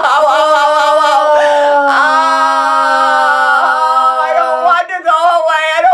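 A woman's voice holding one long wordless sung tone, drifting slightly lower in pitch. She starts a fresh held tone about two seconds in, which stops shortly before the end, and a brief vocal sound follows. It is a released, sustained vocalisation rather than words.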